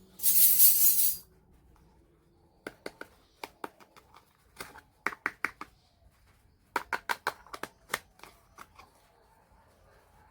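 A brief rustling swish at the start, then runs of quick, light clicks and clinks from small hard toy kitchen pieces being handled and set down.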